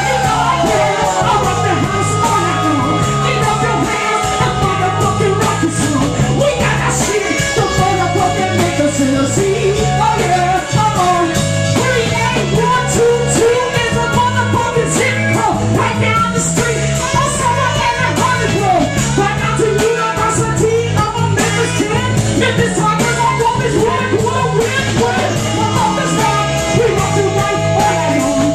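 Live funk band playing, with a woman singing lead over drums and electric guitar at a steady groove.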